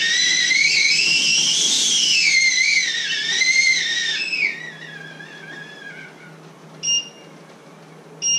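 Stovetop kettle whistling: the whistle rises in pitch as it comes on, wavers, then sinks and dies away about five seconds in. Two short electronic beeps follow near the end.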